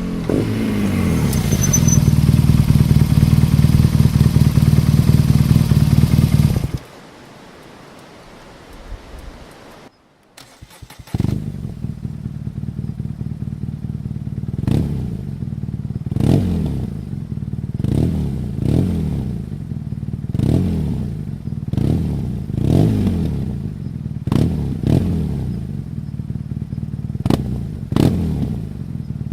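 BMW R nineT's air/oil-cooled boxer twin through its stock exhaust with the baffle removed, running loud and steady, then cut off suddenly. After a quiet gap it is revved in a string of throttle blips, about one every one and a half to two seconds, each rising and falling in pitch with sharp cracks from the exhaust.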